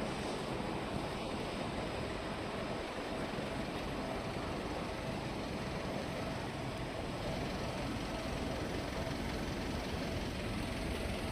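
Steady traffic noise beside a railway line, even throughout, with a faint steady tone running through it.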